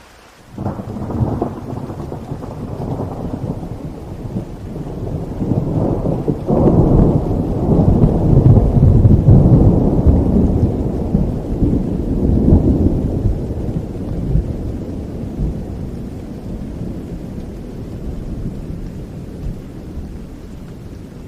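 A long roll of thunder over steady rain. It breaks in sharply about half a second in, is loudest in the middle and slowly rumbles away toward the end.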